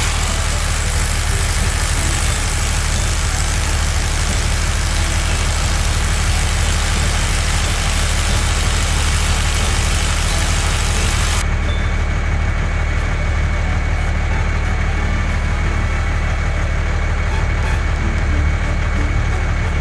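Heavy construction vehicle engine running steadily: a loud, low rumble under a broad hiss, with the highest part of the hiss dropping away about halfway through.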